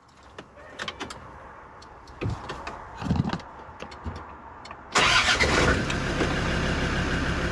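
Land Rover Discovery 2's engine starting about five seconds in, catching at once and settling into a steady idle, after a few light clicks and knocks.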